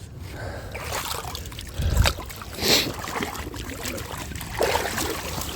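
Water sloshing and splashing around legs as someone wades through a shallow river, in irregular surges with a heavier splash about two seconds in.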